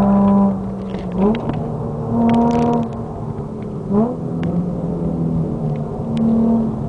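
Nissan 350Z's 3.5-litre V6 through an Amuse full exhaust, heard from inside the car at speed on track. The engine note holds steady, with two quick rises in pitch about a second in and again about four seconds in. Light clicks and rattles from the cabin sound through it.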